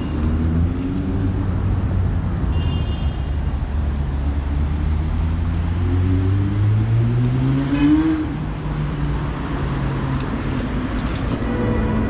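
City street traffic: car engines running as vehicles drive past, one rising in pitch as it accelerates and loudest about eight seconds in.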